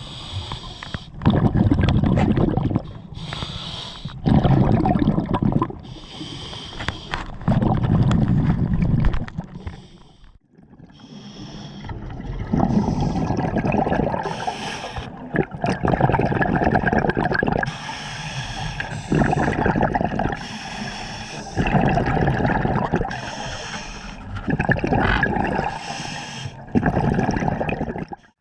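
Scuba diver breathing through a regulator underwater. Each exhale sends out a burst of gurgling bubbles every few seconds, and between them the inhales come as quieter hisses.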